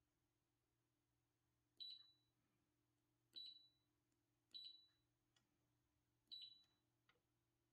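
Anycubic Photon Mono resin printer's touchscreen beeping as its menu buttons are tapped: four short, high beeps spaced about a second and a half apart, each starting with a light tap, with a couple of softer taps between.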